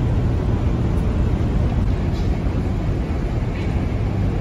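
Steady low rumble of a passenger ship's engines, heard from its deck.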